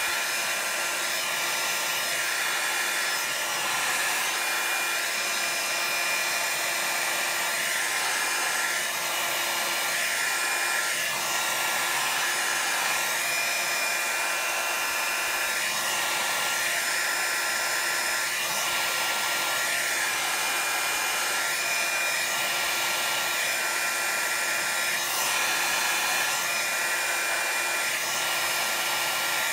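Handheld electric craft heat tool running and blowing air over wet alcohol ink on paper. It makes a steady whirring hiss with a faint motor whine that wavers slightly every couple of seconds as the tool is moved.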